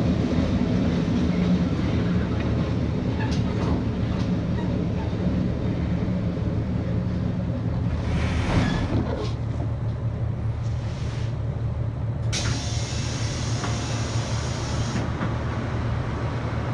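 On-board running sound of a KiHa 85 series diesel railcar: a steady low rumble of engine and wheels on the rails that slowly gets quieter. A brief hiss comes about eight seconds in, and a sharper hiss of air starts suddenly a little after twelve seconds and stops about three seconds later.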